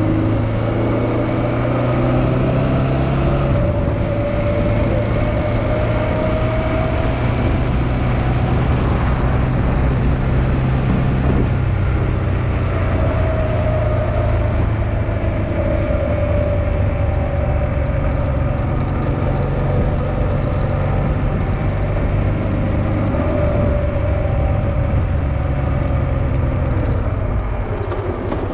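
Honda XL650V Transalp's V-twin engine running under way, its pitch rising and falling several times with the throttle. It eases off slightly near the end.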